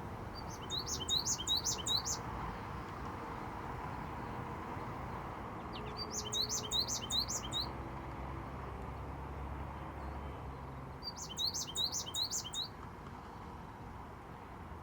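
Male American goldfinch singing: three short phrases of quick, high notes, each lasting about a second and a half, a few seconds apart.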